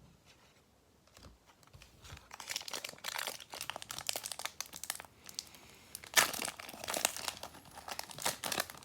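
Foil Pokémon booster pack wrapper being torn open and crinkled. It starts about two seconds in as dense crackling, with the loudest sharp crackle a little past the middle.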